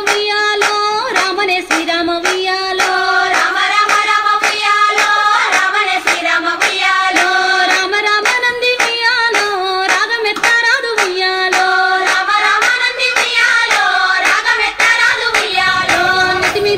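A Bathukamma folk song: a high singing voice carrying a melody over steady, rhythmic hand clapping.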